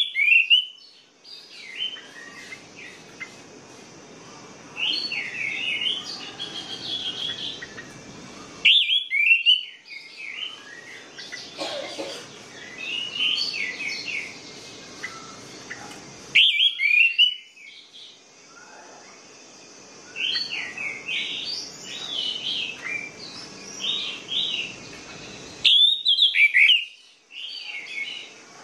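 Orange-headed thrush (anis merah) singing in a cage: varied whistled phrases of quick rising and falling notes, with loud phrases about every eight seconds and softer song between.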